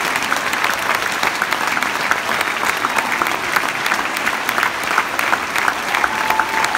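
A theatre audience applauding, dense massed clapping that keeps a steady level throughout.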